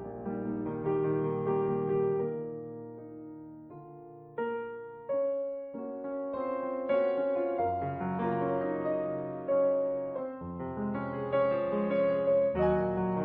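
Solo piano music playing slow, gentle chords and melody, each note struck and dying away.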